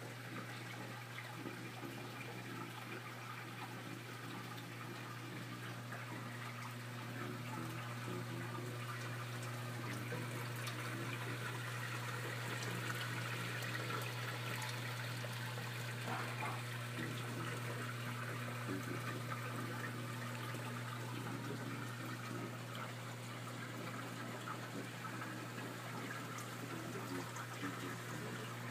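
Water splashing and running steadily through a 75-gallon reef aquarium sump, over a steady low pump hum.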